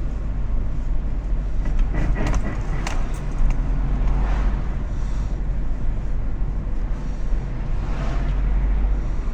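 Car driving over a bumpy road, heard from inside the cabin: a steady low road rumble with a few sharp knocks about two to three seconds in. The knocking is a suspect noise over bumps that the owner suspects comes from worn shock absorbers.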